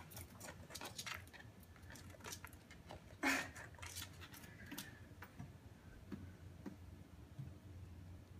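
Faint, irregular clicks and scratches of a small pet bird nibbling at a sculpture and shifting its feet on it, with one louder knock about three seconds in.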